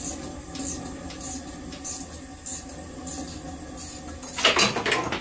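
Gear puller being worked to draw the timing sprocket off a small-block Chevy crankshaft: a tool turning the puller's screw in short strokes, a sharp click about every half second, then a louder metallic rattle near the end.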